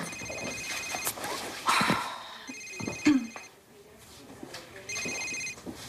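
Mobile phone ringing with an electronic trilling ringtone, three rings about two and a half seconds apart.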